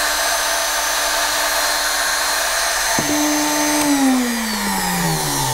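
The brushed motor and gearbox of a Greenworks G24AG 24-volt cordless angle grinder, housing opened, running at steady speed. There is a click about three seconds in, and from about four seconds in the grinder winds down, its whine falling in pitch as it coasts to a stop.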